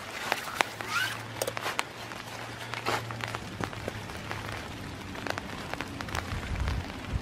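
Footsteps through wet fallen leaves, with irregular rustles and crackles as the walker moves over the leaf litter. Light rain falls on the leaves and trees.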